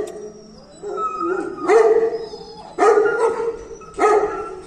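Dogs barking, four drawn-out, howling barks roughly a second apart.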